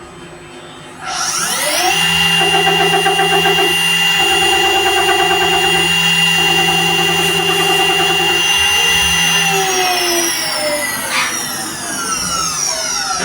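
CNC machine spindle spinning up about a second in, holding a steady high whine while the tool cuts with a pulsing, rhythmic sound, then winding down in a falling whine from about ten seconds in.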